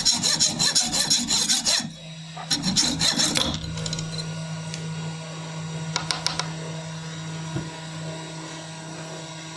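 Hacksaw cutting through a solid brass bar held in a lathe chuck, in quick scraping strokes in two spells that stop about three and a half seconds in. After that there is a steady low hum with a few light clicks.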